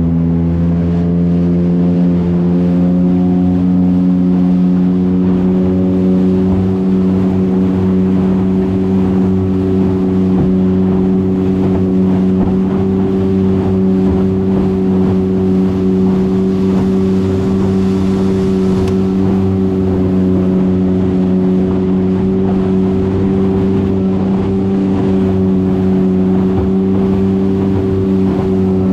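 Motorboat engine running at high speed, its pitch levelling off right at the start and then holding steady, with water rushing and splashing along the aluminium hull as it cuts through rough water.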